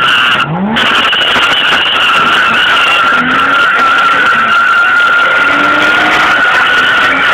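Car skidding, its tyres squealing in a steady high screech throughout, with the engine revving underneath: one sharp rise about half a second in, then held at a steadier pitch.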